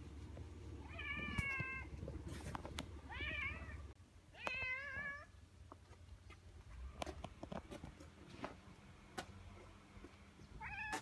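Orange tabby cat meowing: three short meows in the first five seconds and one more at the end.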